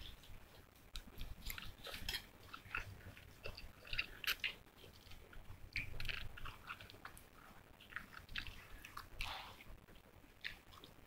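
A person eating instant cup noodles with chopsticks: faint chewing and slurping with many small, irregular clicks and crackles.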